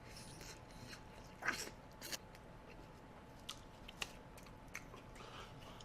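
Faint eating sounds of someone biting and chewing pizza, with a few sharp clicks in the second half.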